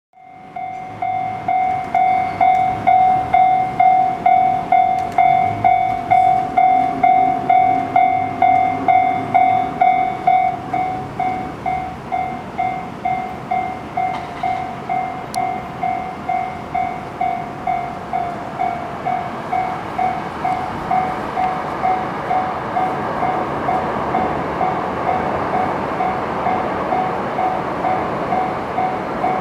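Japanese level-crossing alarm ringing steadily, about two dings a second, a little quieter after about ten seconds. From about twenty seconds in, the rumble of an approaching freight train hauled by an EF65 electric locomotive grows beneath it.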